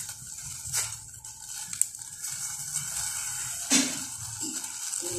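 Shirataki noodles being added from a plastic container to a stainless saucepan of hot water: a few light taps and clicks against the pot over a faint steady hiss.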